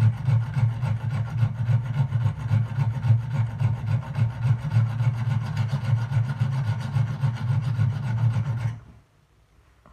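Steel knife blade being ground against an abrasive, a steady, rapidly pulsing rasping rub that stops abruptly near the end.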